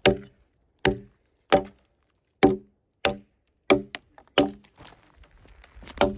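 Hatchet chopping into a log, clearing the wood between a row of chainsaw cuts. A steady series of sharp strikes, about one every two-thirds of a second, each with a short ringing tone.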